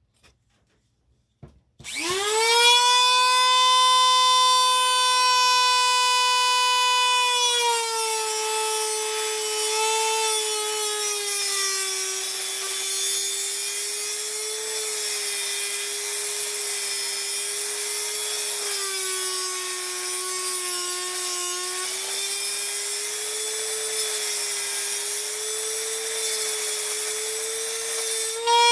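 Electric power tool starting up and running continuously with a high whine and a rubbing, grinding hiss. The pitch drops and wavers as the tool works under load.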